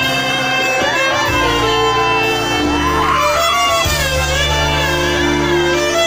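Loud music: a melody that slides and bends between notes over held bass notes.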